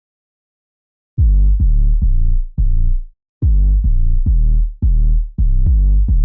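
Electronic music with deep, booming bass notes struck in a quick repeating pattern, starting suddenly about a second in after a moment of silence.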